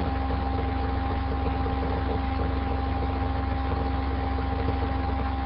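Steady background hum and hiss with a few constant tones, unchanging throughout, with no separate events.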